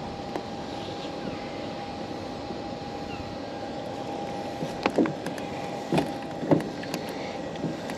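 Steady whine from a small electric motor, with three sharp knocks about five to six and a half seconds in.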